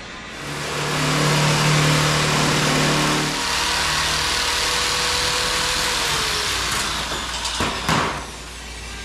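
Corded electric sheet-metal shear running and cutting through sheet steel: a loud, steady hissing cut over a motor hum. Its pitch falls as the motor winds down about seven seconds in, and two sharp knocks follow near the end.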